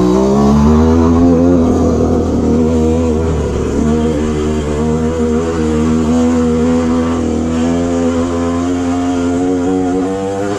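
KTM dirt bike engine running under throttle while riding a narrow dirt trail. The revs dip at the start, then rise and fall in small steps as the throttle is worked.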